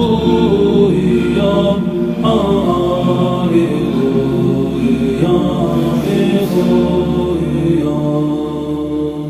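Music of slow, chant-like singing over a steady low drone.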